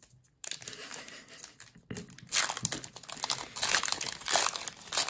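Foil Pokémon booster pack wrapper crinkling in the hands as it is torn open, growing louder about two seconds in.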